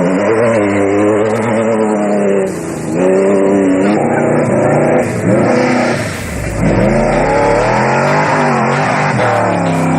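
Off-road race vehicle's engine revving hard, its pitch climbing and dropping about four times as the throttle is worked.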